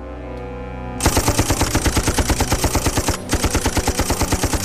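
Maxim machine gun firing fast and continuously, about ten shots a second, starting suddenly about a second in with a short break a little past three seconds. Under it runs a low, steady music drone.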